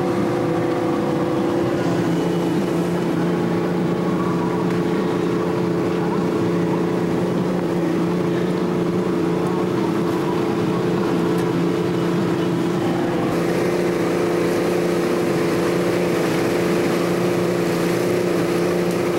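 The outboard motor of a 20-foot Hydrodyne ski boat runs steadily at cruising speed, a constant drone with wind and rushing water over it. The wind and water noise rises a little about two-thirds of the way through.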